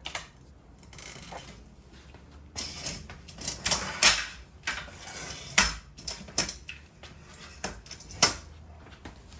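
Irregular clicks, knocks and clatter of tools and small hard objects being handled, with a few sharper knocks among them.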